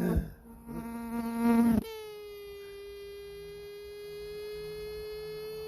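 An insect, likely a fly, buzzing close to the microphone. A low steady buzz breaks off sharply about two seconds in, and a higher, steady buzz takes over and holds. A short knock comes at the very start.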